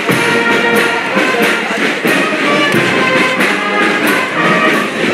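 Brass band playing a march tune over a steady drum beat.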